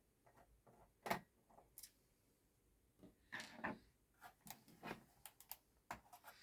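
Scattered small clicks and taps of hands working on a laptop's plastic case and screws during disassembly, with one sharper click about a second in and a brief scrape near the middle.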